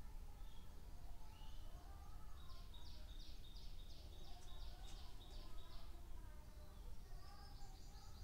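A bird chirping in the background, faint: a run of about a dozen quick high notes, about three a second, a few seconds in, with a few more chirps near the end. A steady low hum of room noise lies underneath.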